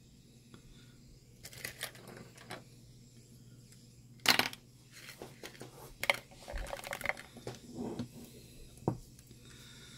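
Scattered clicks, taps and rattles of small tools and parts being handled on a workbench while a soldering iron is readied, the loudest clack about four seconds in, over a faint steady low hum.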